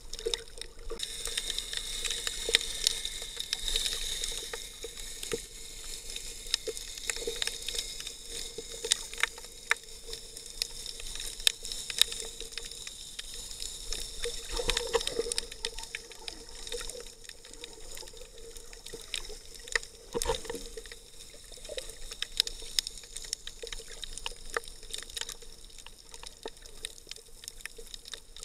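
Underwater sound recorded through an action camera's waterproof housing: muffled water movement and hiss, dotted with many sharp clicks and crackles, over a faint steady hum.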